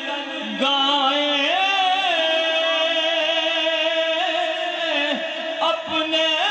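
A man's voice singing a naat, drawing out long, wavering held notes with slides between pitches.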